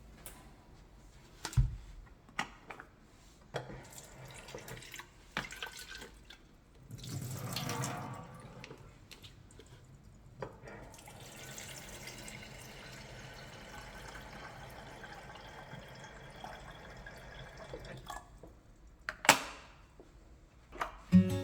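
Household kitchen sounds: a few light clicks and knocks, a louder rush of water about seven seconds in, then a fainter steady run of water from a tap.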